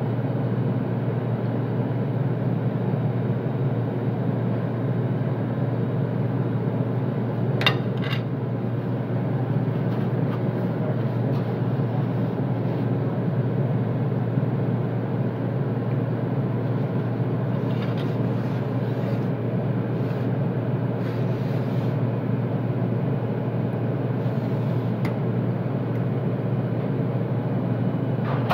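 Steady drone of commercial kitchen machinery: a constant low hum under an even rushing noise, with two sharp clicks about eight seconds in.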